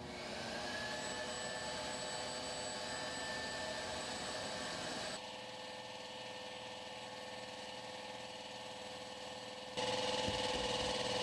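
Steady machine drone with a light hiss from a sandblast cabinet setup running, its dust-collection vacuum and air supply on. The level drops about five seconds in and rises again near the end.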